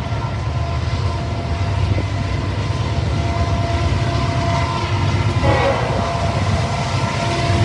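Freight locomotive air horn sounding a long, steady chord, with heavy wind buffeting the microphone.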